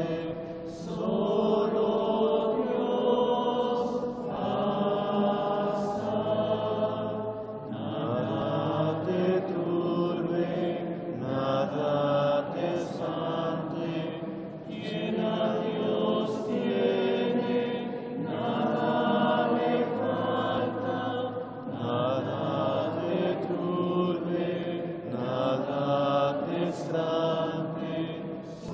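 A congregation singing a slow, repetitive Taizé chant: held notes in phrases of a few seconds, with short pauses for breath between them.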